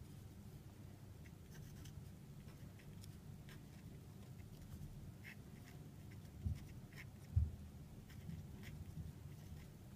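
A marker writing by hand on a white board, in short faint scratchy strokes. Two dull low thumps, the loudest sounds, fall about six and a half and seven and a half seconds in.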